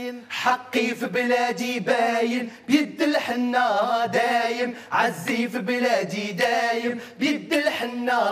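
Male vocal group singing in harmony, with almost no accompaniment under the voices. The sung lines waver and glide between notes.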